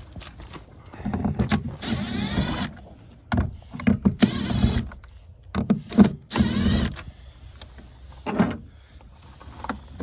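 Cordless drill-driver with a Pozidriv No. 2 bit backing out the three screws of a caravan door-handle cover disc. It goes in three short runs of motor whine that change in pitch as each screw comes loose.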